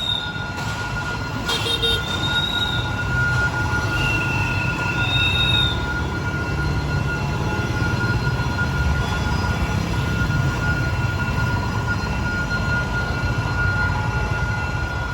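D19E diesel-electric locomotive hauling a passenger train past, with a steady heavy rumble of engine and wheels. A few short high wheel squeals ride over it, the first near the start and others around the middle.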